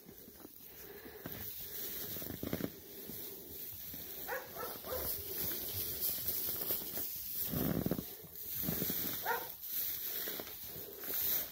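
Sheep (ewes) giving a few short bleats, about four to five seconds in and again about nine seconds in, over a steady high hiss.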